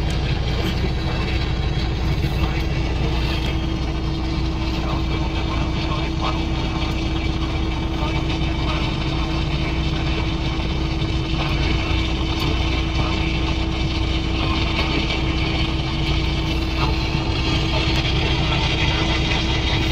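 Semi-truck's diesel engine idling, heard from inside the cab: a steady low drone with a constant hum above it.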